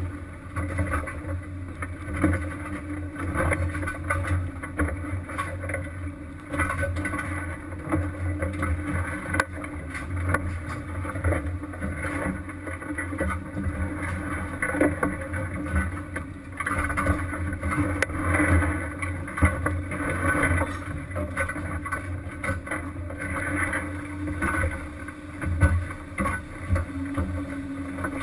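A fishing vessel's engine running with a steady low hum, under a shifting wash of wind and sea noise and a few sharp knocks.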